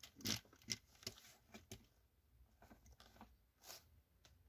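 Plastic LEGO pieces clicking and rattling faintly as a built LEGO vehicle is handled and set in place: a scatter of short, light knocks, the loudest about a third of a second in.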